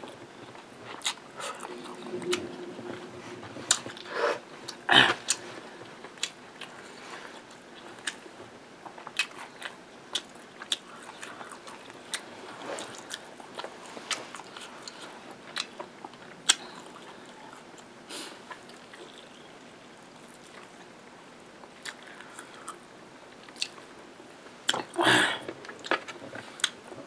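A person chewing and biting food close to the microphone: wet mouth sounds and many sharp lip and tongue clicks, with a louder bite about five seconds in and another near the end.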